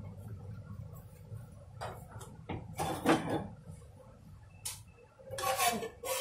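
Light kitchen knocks and clicks over a low steady hum, then a metal pot clattering as it is picked up and moved near the end.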